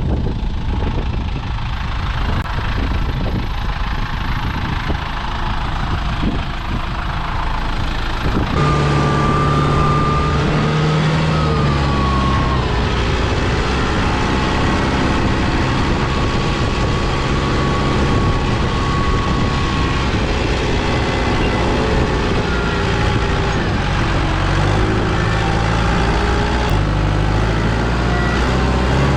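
Mini excavator's diesel engine running steadily while it works, with a whine over it that shifts in pitch now and then. The sound changes abruptly about eight seconds in.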